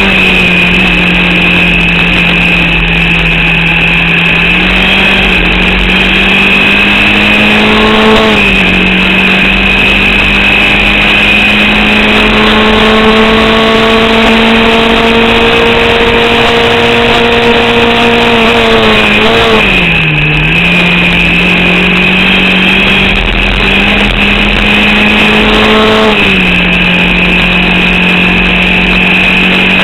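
Formula Vauxhall 8v single-seater engine running hard at fairly steady revs, heard from the cockpit. The revs dip and recover three times, about 8, 20 and 26 seconds in, with a steady high whine over the engine note. The driver says the engine is misfiring and losing power to an alternator/battery fault, limiting it to about 4500 rpm.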